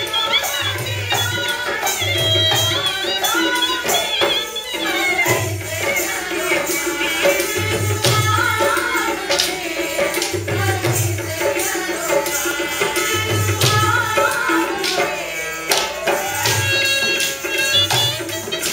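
Live Rajasthani folk music for a long-stick dance: a hand drum beats a steady low pulse under a gliding melody, with sharp clacks as the dancers strike their long wooden sticks together.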